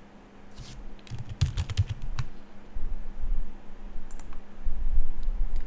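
Computer keyboard and mouse clicks: a quick run of clicks in the first two seconds, then low thuds toward the end.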